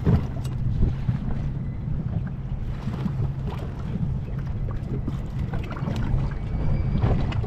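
Wind buffeting the microphone aboard a small fishing boat, over a steady low rumble, with a few light knocks.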